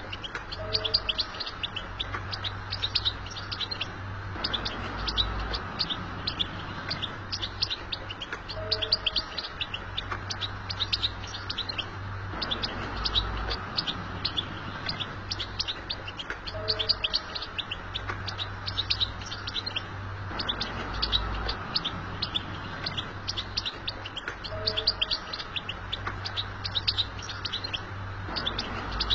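European goldfinch twittering: a fast, continuous stream of high chirps and trills with no pauses.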